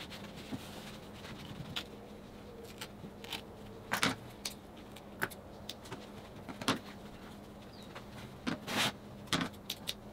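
Carpet-covered wooden panels handled and set down on a wooden workbench: scattered light knocks and taps, irregular, a few a second at most.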